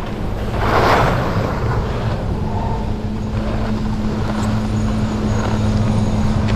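Skis sliding and scraping on hard-packed snow, with a swoosh about a second in, then a steady low hum from about two seconds in as the skis glide up to a chairlift terminal.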